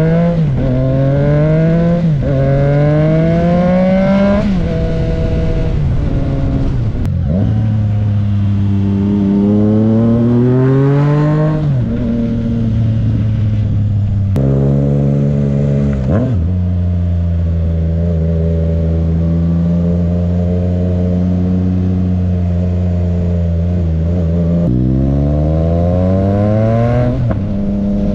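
2022 Triumph Trident 660's inline three-cylinder engine through a GPR full exhaust with the dB-killer baffle removed, under way on the road. It pulls up through several gears, the pitch rising and then dropping at each upshift, settles to a steady cruise in the middle, then accelerates through two more gears near the end.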